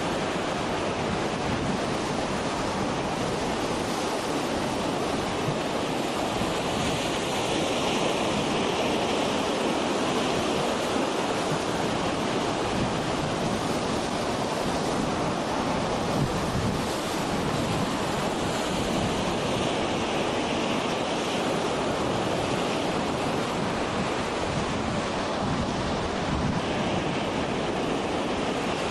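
Waves breaking on a beach: a steady wash of surf, with some wind on the microphone.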